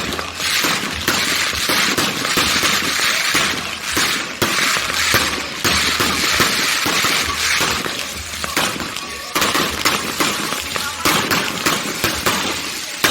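Fireworks going off: a dense crackling hiss full of rapid pops, thinning after about eight seconds into more scattered bangs and cracks.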